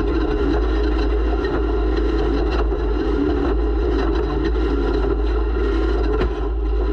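Onboard sound of an off-road race vehicle: its engine running steadily with a heavy low rumble, and a few sharp knocks from the vehicle over the ground.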